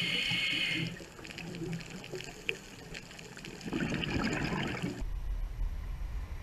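Scuba breathing heard underwater through the camera housing: a steady regulator hiss in the first second, scattered clicks, and a rush of exhaled bubbles from about four seconds in. At about five seconds it cuts suddenly to a low steady rumble of wind on the microphone.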